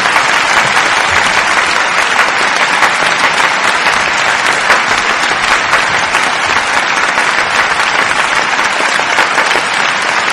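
Steady applause from many clapping hands.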